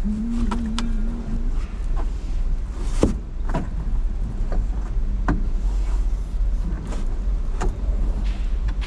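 Car headliner and interior trim being handled and pushed back into place: scattered sharp clicks and knocks, the loudest about three seconds in, over a steady low hum.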